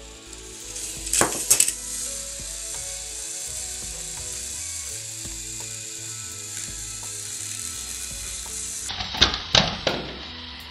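Battery-powered toy train engines whirring steadily as their small motors and plastic gears drive against each other, with sharp plastic clatters about a second in and again near the end as the toys knock and tip. Background music plays underneath.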